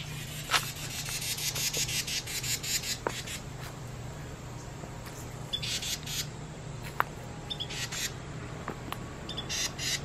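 Carolina wrens giving harsh, raspy chattering calls in rapid bursts, a long run in the first three seconds and shorter runs later, with a few sharp clicks.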